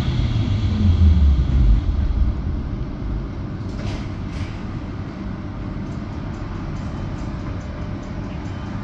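GT6N-U low-floor tram in motion: a loud low motor hum and rumble that falls in pitch over the first two seconds as the tram slows, then a quieter steady rolling rumble, with two short high hisses about four seconds in.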